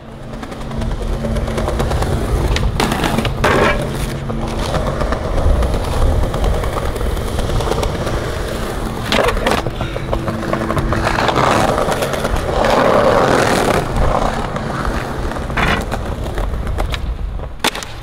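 Skateboard wheels rolling over rough concrete and paving, a continuous grinding rumble, with about five sharp clacks of the board at intervals.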